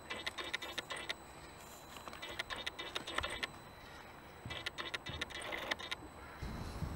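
1/18 RC mini-crawler driving in three short spells of about a second each: its stock 130-size electric motor and gearbox whirring, with clicking and scraping as the tyres grip and climb the stone.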